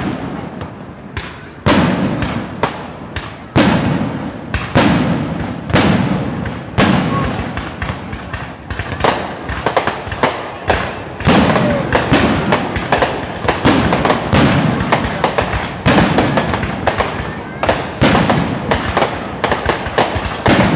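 Aerial fireworks shells bursting one after another, each a sharp bang trailing into a fading rumble, with crackling between. The bangs come more thickly in the second half.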